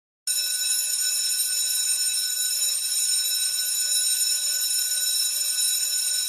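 Steady, high-pitched electronic drone of several held tones over a hiss, starting abruptly a moment in and not changing in pitch: the sustained opening of a pop backing track.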